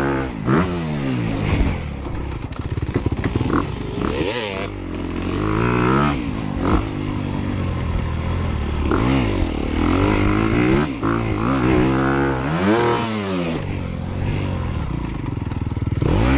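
Several dirt bike engines revving hard and backing off as riders lap a motocross track, the pitch swelling and dropping as bikes pass close by, several times over.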